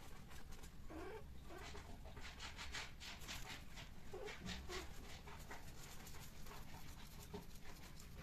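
Two Persian cats mating: a few short, low cat cries, about a second in and again past the middle, over quick, soft breathy noises.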